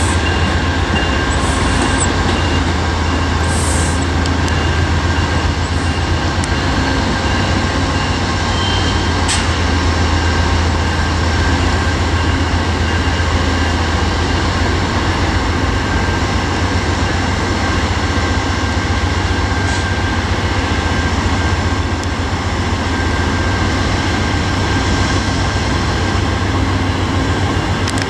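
Diesel passenger locomotives running with a steady, loud low drone as trains move slowly through the station tracks. Faint steady high-pitched tones sit over the drone.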